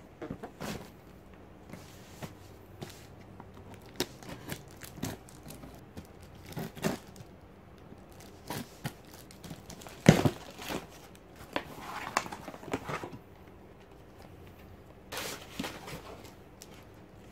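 Cardboard shipping box being opened: scissors slitting the packing tape, tape tearing, and the crinkle of paper packing and cardboard flaps being handled. Scattered short rustles and scrapes, loudest about ten seconds in.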